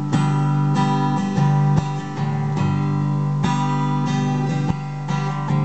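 Epiphone acoustic guitar strummed in steady chords between sung lines of a song.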